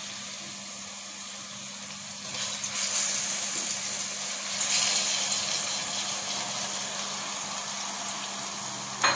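Raw chicken pieces sizzling as they are tipped into hot ghee and ginger-garlic paste in a steel pot. The sizzle swells about two seconds in and again around the middle as more chicken goes in, and there is a sharp knock near the end.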